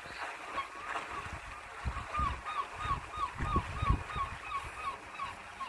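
A bird calling in a quick series of short, falling notes, about three a second, starting about two seconds in, with low thumps underneath.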